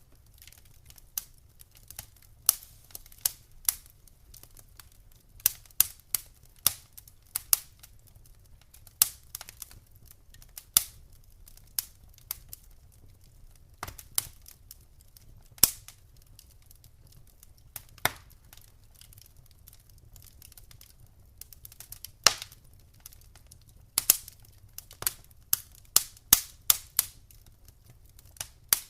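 Wood fire in a fireplace crackling, with sharp pops at irregular intervals, sometimes several in quick succession, over a low steady rumble.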